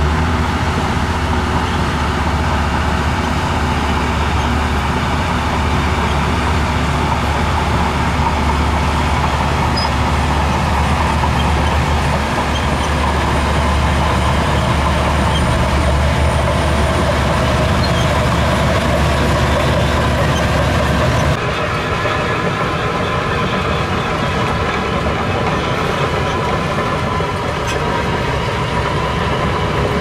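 Shantui DH17 crawler bulldozer's diesel engine running steadily as the dozer pushes soil with its blade. About two-thirds of the way through, the deep low engine note drops away abruptly and a slightly quieter, thinner running sound carries on.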